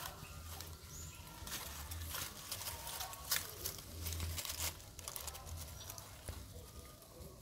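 Dry fallen leaves rustling and crackling as an infant macaque scrambles over them, in short irregular crackles over a low rumble.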